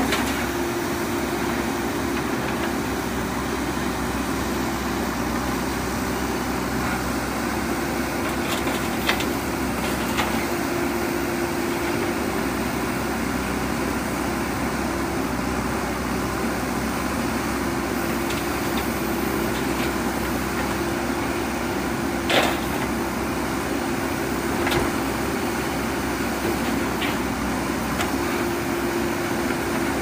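JCB backhoe loader's diesel engine running steadily while the backhoe loads a tipper truck, a constant drone with a hum that comes and goes. A few short sharp knocks stand out, the loudest about two-thirds of the way through.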